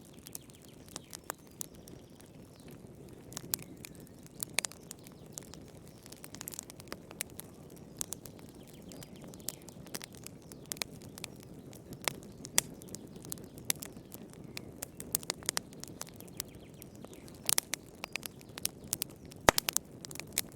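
Fire in a fireplace crackling: irregular sharp pops and snaps over a steady low rush of flame, with one louder pop near the end.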